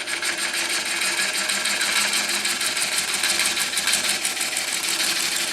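Bowl gouge cutting the outside of a large, out-of-round wet hard-maple bowl blank spinning on a wood lathe at about 350 rpm: a steady hiss of the cut with a quick, regular pulse as the tool meets the uneven, bark-covered sections on each turn.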